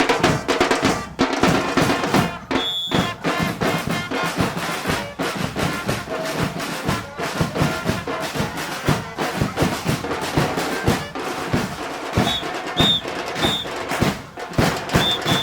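Live carnival band music: drums beating a steady, driving rhythm under brass. A few short high notes sound near the end.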